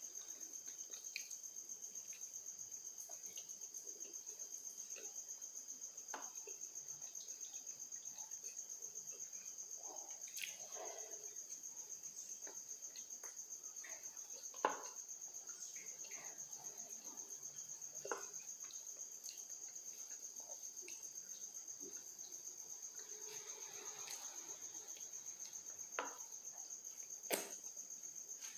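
Steady high-pitched trill of a cricket, pulsing rapidly and evenly, with scattered soft chewing and mouth clicks from someone eating a sandwich; a sharper click about halfway through and another near the end stand out.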